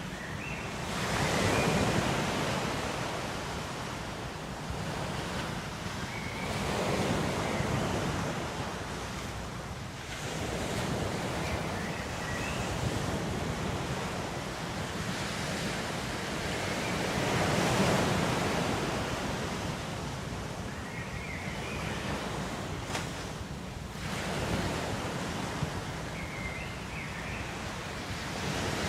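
Ocean surf: waves breaking and washing back in slow surges, swelling and fading about every five to six seconds.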